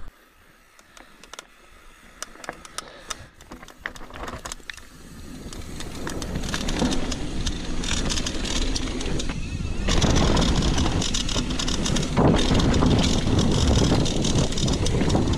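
Mountain bike riding downhill: scattered clicks and rattles at first, then tyre noise and wind on the microphone build up as it gathers speed, loud and steady from about two-thirds of the way through.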